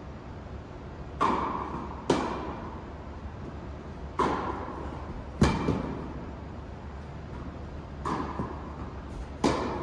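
Tennis ball struck by rackets and bouncing on a hard court during a rally: six sharp hits, falling roughly in pairs, each echoing in a large indoor tennis hall.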